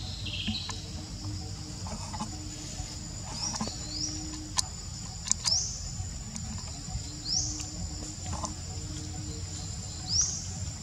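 Outdoor natural ambience: a steady high thin whine with short rising chirps every second or two, and a few sharp clicks near the middle.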